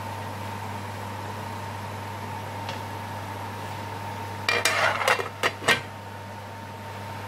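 An aluminium pot lid with a wooden knob is set down on a metal cooking pot. About four and a half seconds in it gives a short rattle and then three clinks, over a steady low hum.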